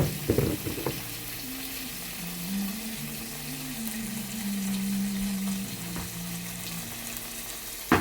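Food frying and sizzling in a pan, a steady hiss, with a few sharp clattering knocks of a utensil against the pan in the first second.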